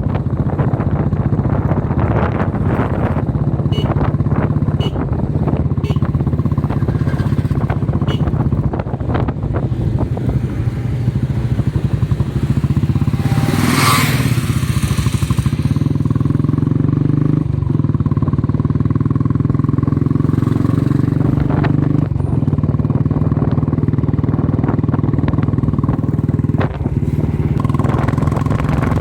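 A vehicle engine running steadily, likely a motorcycle, with scattered small clicks and a brief rushing hiss about halfway through.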